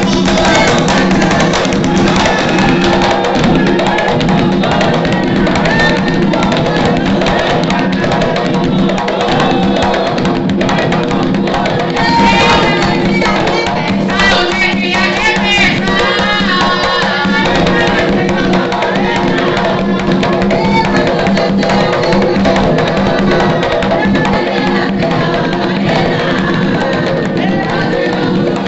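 Drums playing a steady rhythm under voices singing a ritual chant (a ponto) to the pombagira, loud and continuous.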